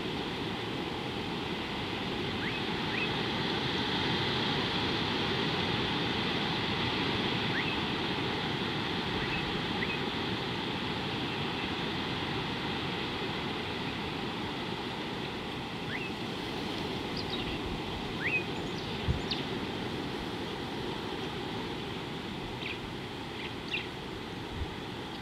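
Steady rushing outdoor noise, with short high rising bird chirps now and then, more of them in the second half, and a few faint knocks near the end.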